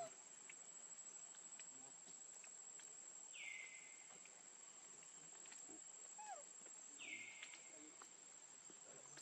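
Faint outdoor ambience: a steady high-pitched insect drone, with two identical calls that drop in pitch and then hold briefly, about three and a half seconds apart, and a short falling chirp between them.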